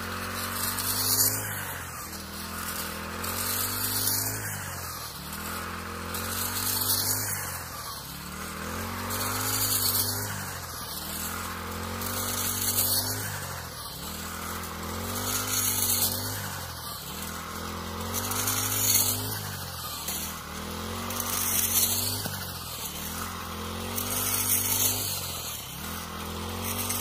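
Petrol brush cutter, its blade fitted with a steel frame for harvesting rice, running steadily as it cuts standing rice stalks. The engine's pitch and loudness rise and fall in a regular cycle about every three seconds as each swing sweeps through the stalks, with a hiss of cut straw on every swing.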